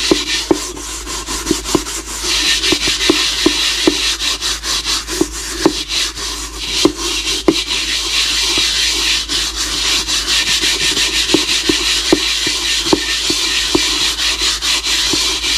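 Metal scouring pad scrubbing the soot-blackened bottom of an aluminium pot: a continuous harsh scratching in quick back-and-forth strokes, with many small sharp ticks as the pad catches the metal. The burnt-on black is being scoured off.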